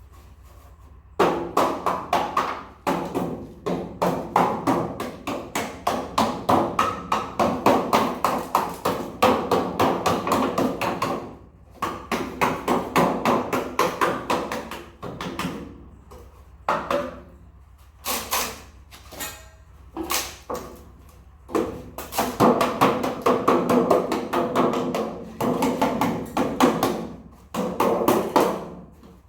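Hammering: rapid repeated blows, several a second, in long runs broken by short pauses.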